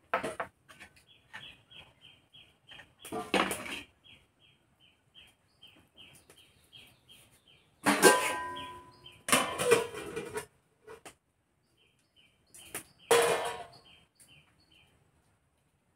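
Steel cookware clattering at a wok over a wood fire: several knocks with a metallic ring, the loudest about eight seconds in and again near the end as the steel lid goes onto the wok. Behind them a short high chirp repeats about three times a second, pausing in the middle.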